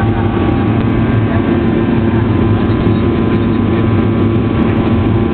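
Steady cabin noise of a jet airliner in flight: a constant engine and airflow drone with a few faint steady tones over it.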